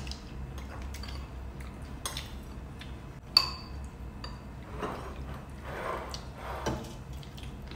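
Tom yum soup being slurped and eaten from metal spoons, with a sharp clink of a spoon against a ceramic bowl about three and a half seconds in and a lighter ringing clink a second later. A faint steady low hum runs underneath.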